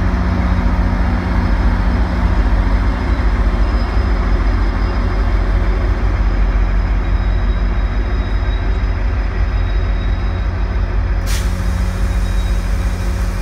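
GO Transit MP40PH-3C diesel locomotive running with a steady low rumble and hum as it rolls slowly into the station. About eleven seconds in comes a short, sharp hiss of air from the brakes.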